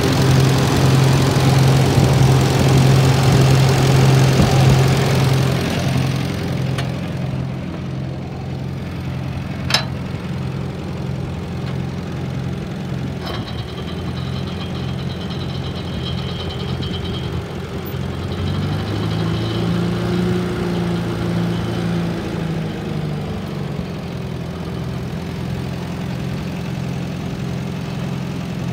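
1945 Farmall B tractor's four-cylinder gasoline engine idling steadily, louder for the first few seconds. There is a single sharp click about ten seconds in, and the engine speed briefly rises and falls about twenty seconds in.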